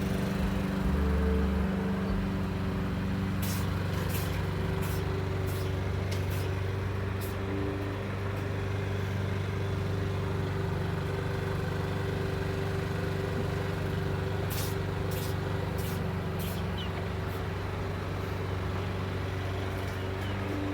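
Lawn mower engine running steadily with an even hum. Over it a cat sneezes in two runs of short, sharp sneezes, one about four seconds in and one about fifteen seconds in.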